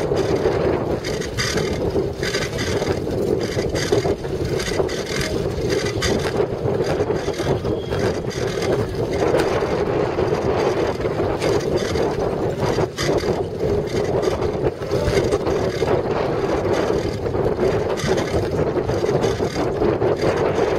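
Wind buffeting the microphone of a bicycle-mounted camera while riding, over a steady rumble from the tyres on rough dirt, with frequent small clicks and rattles from the bike.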